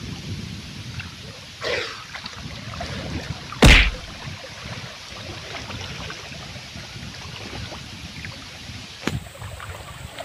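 River water sloshing and splashing around a man wading waist-deep through a shallow current. About a third of the way in comes one sharp, loud knock.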